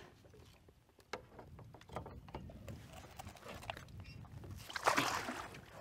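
Scattered light knocks and taps from handling a fish on a measuring board in a small metal boat, with a short rush of noise near the end.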